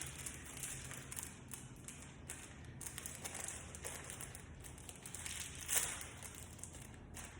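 Faint rustling and light taps of door-handle hardware being handled, with one sharper rustle about six seconds in.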